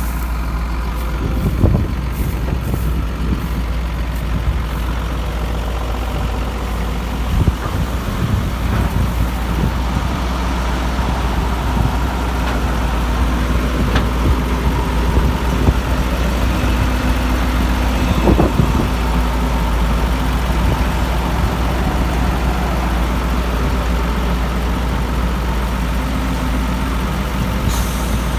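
Heavy machinery's engine running steadily at work, with a few short thumps: about 2 seconds in, at 7 to 8 seconds, and near 18 seconds.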